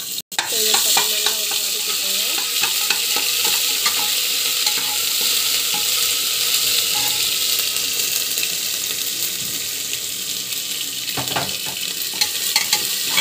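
Ginger-garlic paste and cumin seeds sizzling and spitting in hot oil in a pressure cooker, a steady frying hiss. A few sharp clicks near the end as a spoon stirs against the pot.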